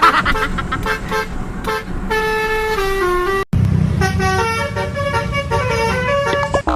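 Telolet bus horn playing a tune of held, stepping notes over a low engine rumble, cutting out for an instant about halfway through.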